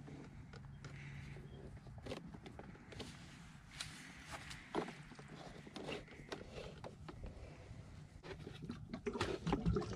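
Faint scattered clicks and scrapes of metal fittings being handled: a garden hose's metal coupling being threaded onto a brass ball valve. The clicks grow louder and closer together near the end.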